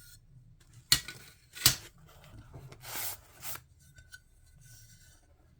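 Small sheets of stained glass being handled: two sharp clinks of glass about a second in and a second and a half in, then a brief rustle.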